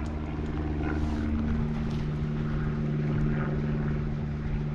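An engine running steadily, with a shift in its tone about a second and a half in.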